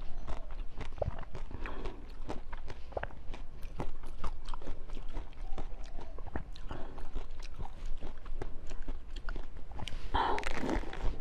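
Close-miked eating: irregular crunching bites and chewing of frozen food, with a denser stretch of sound near the end.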